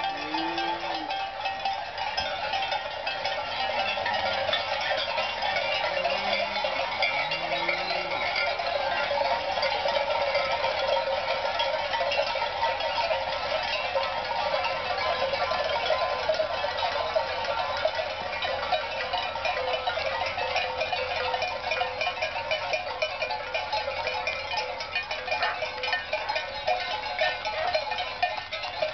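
Many cowbells on a moving herd of cattle clanking continuously, with several low cattle moos in the first eight seconds or so.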